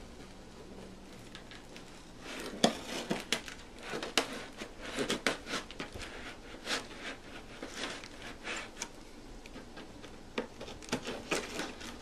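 A cardboard box and its packaging being opened and handled: a quick, irregular run of scrapes, rustles and knocks starting about two seconds in, with one sharp knock just after they begin.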